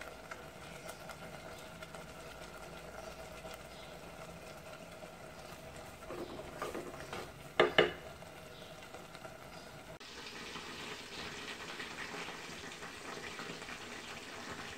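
Thick prawn masala curry simmering in a clay pot, with faint bubbling over a steady hum. Two sharp knocks sound just before the middle. About two-thirds of the way in, the sound changes to a brighter crackling, bubbling hiss.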